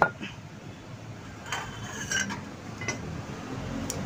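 Metal motorcycle front-fork parts and tools clinking and knocking as they are handled and set down: a sharp knock right at the start, then a few scattered lighter metallic clinks.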